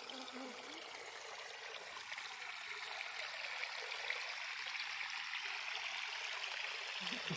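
A small mountain waterfall splashing steadily: an even hiss of falling water.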